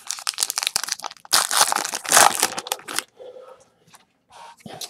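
A trading-card pack's foil wrapper is torn open and crumpled, giving loud crinkling for about three seconds. A few quieter rustles follow.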